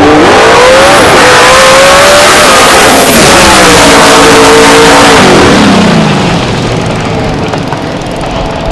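Two drag-racing cars launching side by side at full throttle: very loud, the engine note climbing, dipping at a gear change about three seconds in, then falling in pitch as the cars pass. The sound fades as they run off down the strip.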